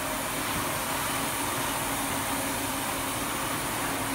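Jonsen Sander SD300-WJS+3D wet deburring machine, with a wide sanding belt and planetary disc-brush heads, running steadily: a constant machine hum with a low steady tone under an even hiss.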